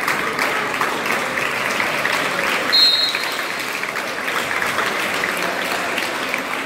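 Applause: many hands clapping steadily, with a brief high-pitched squeak about three seconds in.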